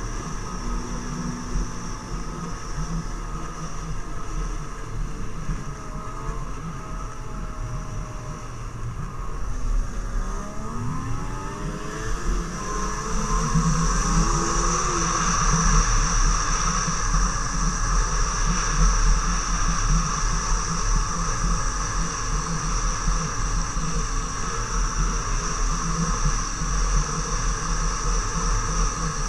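Snowmobile engine running under way. Its pitch rises as it speeds up about ten seconds in, and it runs louder from then on.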